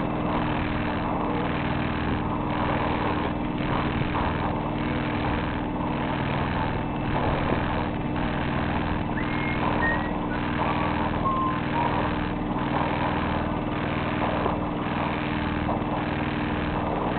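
A sailboat's inboard engine running steadily as the boat motors under way: a constant hum with a faint regular pulse about twice a second.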